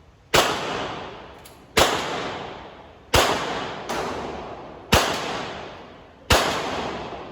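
Gunshots at a shooting range: five loud single shots fired at a slow, steady pace, each followed by a long echoing decay, with a fainter shot about four seconds in.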